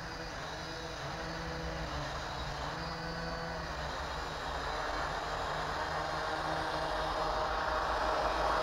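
Small toy quadcopter's propellers spinning on the water surface, a steady whirring buzz that grows louder toward the end as the drone comes close.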